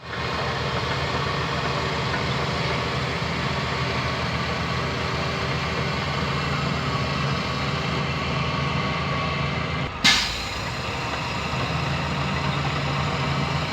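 Heavy diesel engine running steadily. About ten seconds in there is one short, sharp hiss of air that dies away quickly.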